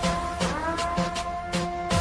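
Ringtone-style electronic dance music: held synth notes over a light, regular beat of about two hits a second.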